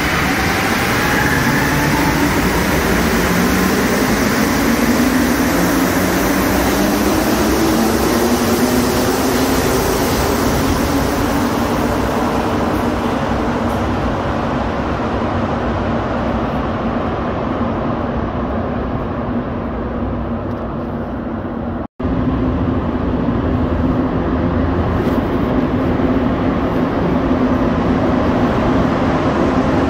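Montreal Metro rubber-tyred train pulling away and running through the tunnel: its motor whine climbs in pitch over the first several seconds, then holds steady over the rumble of the tyres. The sound cuts out for an instant about two-thirds of the way through.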